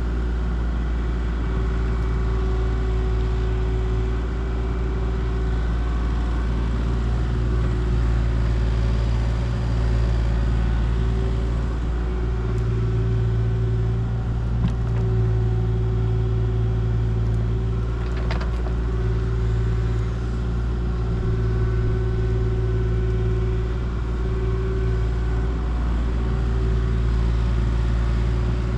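Diesel engine of a compact tracked excavation machine running steadily, its low note swelling a little from time to time as load or throttle changes.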